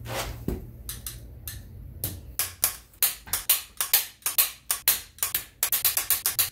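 Ratchet of a torque wrench clicking on the back-strokes as the cylinder-head stud nuts of a 3800 V6 are pulled down to final torque. A few scattered clicks at first, then a quick, steady run of clicks from about two seconds in that speeds up near the end.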